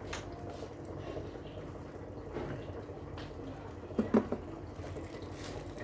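Quiet room noise with a steady low hum and scattered light clicks, and a pair of sharp knocks about four seconds in, from objects being handled.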